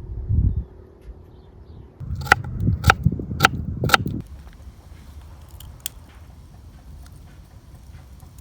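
Four sharp knocks about half a second apart over a low rumble, followed by faint scattered ticks.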